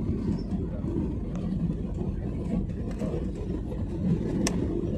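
Airliner cabin noise: a steady low drone of the engines and airflow, with one sharp click about four and a half seconds in.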